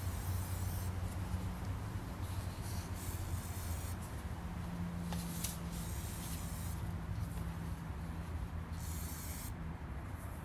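Aerosol spray can hissing in several short bursts of under a second or so each, over a steady low hum of city noise.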